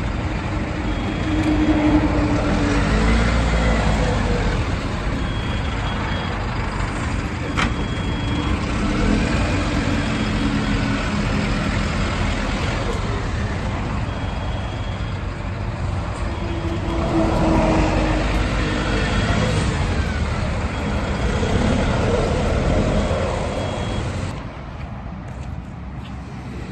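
Hyster LPG forklift engine running, its pitch rising and falling several times as it is revved. A faint high tone comes and goes, and there is a single sharp click about eight seconds in.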